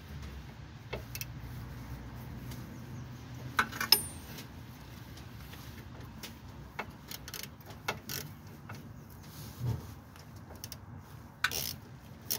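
Scattered metallic clicks and knocks of hand tools and parts being handled during the power steering pump removal, the loudest about four seconds in, over a low steady hum.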